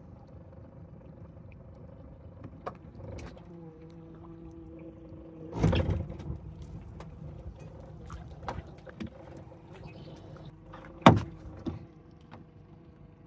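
Boat motor running steadily at low speed, with scattered knocks and two louder thumps, about six and about eleven seconds in, the second one the loudest.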